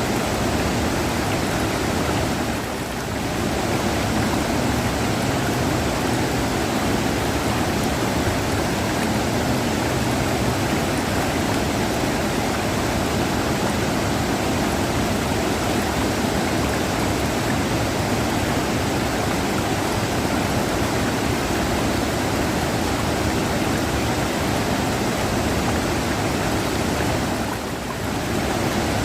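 River water rushing, a steady, dense wash of noise that dips slightly twice, about three seconds in and near the end.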